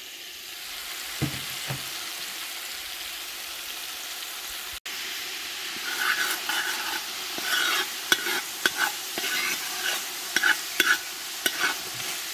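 Curry sizzling steadily in hot oil in a cooking pot. From about halfway a spoon stirs it, clattering and scraping against the pot in a run of sharp knocks.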